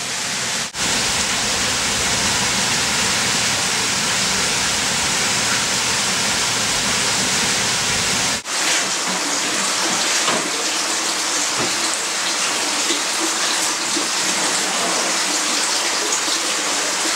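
Steady rush of running water, breaking off for an instant twice where the picture cuts, with less low rumble after the second break.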